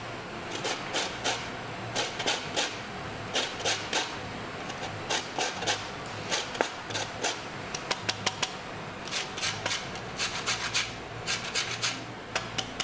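Orange zest being grated on a stainless steel box grater: quick rasping strokes of the peel across the fine teeth, in short runs with brief pauses between them.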